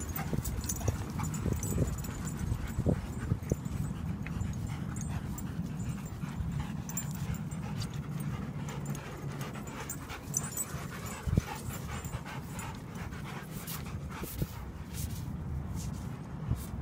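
Dogs panting, over a steady low rumble, with scattered small clicks and knocks.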